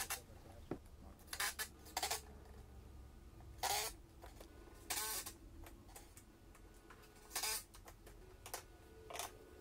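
Cordless driver driving pocket-hole screws into a clamped face-frame joint: several short, faint bursts spaced a second or two apart.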